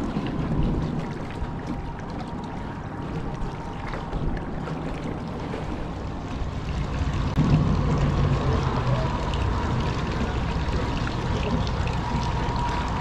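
Choppy lake water lapping and splashing against the hull of a small fishing boat, with a faint steady whine running underneath; the sound gets louder about halfway through.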